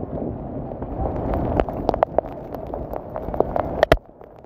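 Flash-flood torrent rushing down a wadi: a dense, loud rush of water with many sharp clicks and knocks through it. A loud crack about four seconds in, then the sound drops away abruptly.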